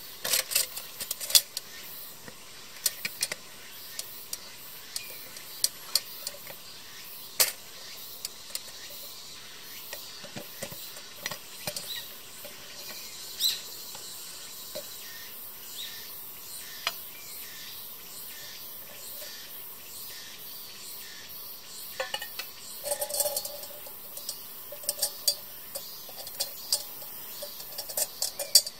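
Stainless steel Zebra lunchbox being handled: sharp metal clicks and clinks from its wire latch clips and lid. They are scattered at first, then come in a busier run of clinking near the end as the lid comes off.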